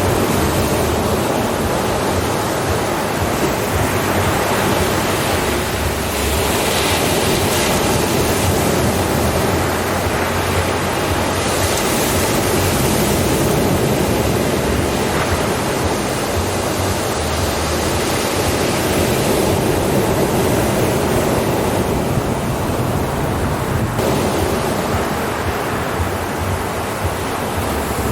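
Ocean surf: waves breaking and washing in a continuous rush, swelling and easing every few seconds.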